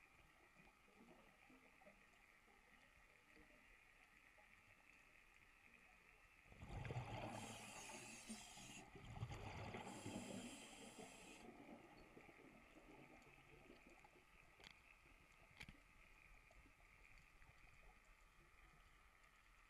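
A scuba diver's exhaled breath bubbling out of the regulator in two rushing bursts about a third of the way in, heard underwater through the camera housing over a faint steady hiss. Two faint clicks follow later.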